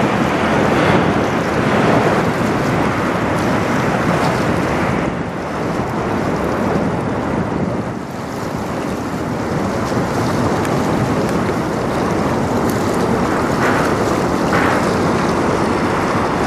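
Steady wind noise on the microphone over the rush of river water, as a loaded 1,000-foot Great Lakes bulk freighter passes close by, its stern churning up white water.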